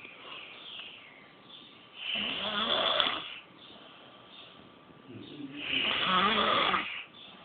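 A person snoring: two long snores, each over a second, about three and a half seconds apart, with quiet stretches between them.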